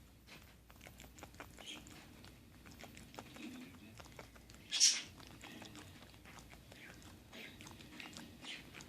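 Pet pig making quick clicking, smacking mouth noises, a clucking-like chatter. About five seconds in comes one loud, short, breathy burst.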